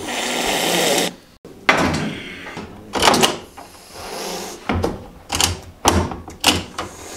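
Angry domestic cat in a carrier hissing, a loud airy hiss for about a second, then more hisses. In the second half comes a run of short, sharp bursts, spits and knocks as it strikes at a hand reaching in through the carrier's wire door. This is defensive aggression.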